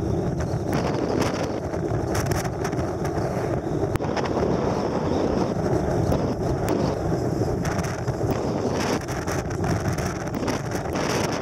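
Wind buffeting the microphone of a moving vehicle in gusty rushes, over a steady low rumble of engine and road noise.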